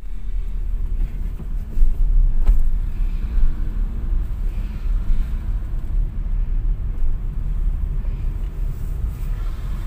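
Car driving slowly, a low steady rumble.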